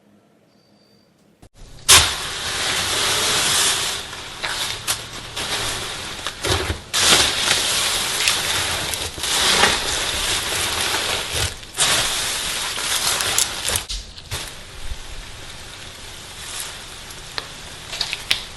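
Slime being squeezed and played with by hand: a dense, crackling, squishing noise with many sharp pops, starting about a second and a half in.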